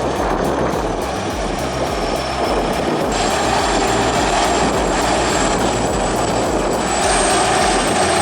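A heavy machine's diesel engine running steadily, with a thin high whine above it.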